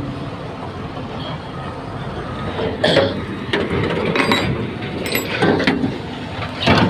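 A few sharp metal knocks and clanks, about three seconds in, around four seconds, and near the end, from the steel deck cover plates and hose fittings of a Volvo excavator's engine bay being handled, over a steady background noise.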